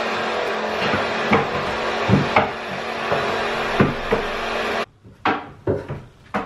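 Vacuum pump of a goat milking machine running steadily, with a few sharp knocks on the wooden milking stand over it. The pump cuts off suddenly about five seconds in, followed by a few light knocks and clatters.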